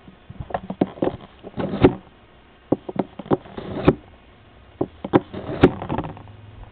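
A knife blade being pulled through the sharpening slots of a Smith's 10-second pocket knife sharpener. There are three rounds about two seconds apart, each made of a few sharp clicks and knocks followed by a short rasping scrape of steel across the sharpening edges.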